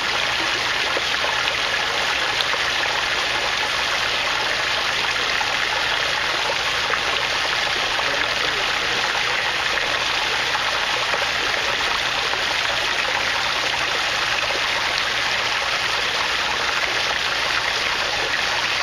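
Water pouring steadily in an aquaponics system, a tank that has filled to the top spilling over.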